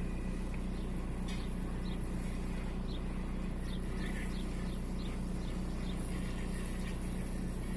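Volkswagen 1.9 TDI AXR four-cylinder pump-injector diesel engine idling steadily. It has an intermittent misfire on cylinder 4.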